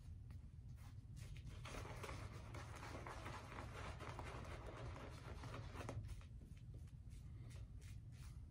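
Shaving brush scrubbing and swirling lather over a stubbly face: a faint, soft, scratchy swishing, louder from about two seconds in to about six seconds in.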